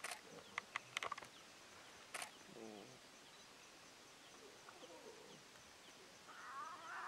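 Lion cubs mewing and squealing faintly as they jostle for a teat on the suckling lionesses: a low falling call about three seconds in and a higher wavering one near the end. A few short sharp clicks in the first two seconds.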